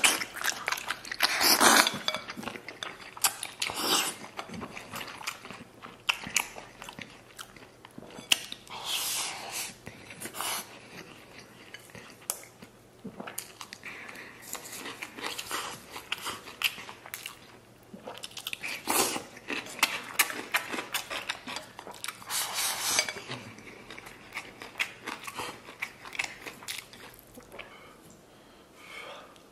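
A person biting and chewing mouthfuls of red-braised lamb rib meat with rice, in clusters of chewing clicks and smacks with louder bites now and then.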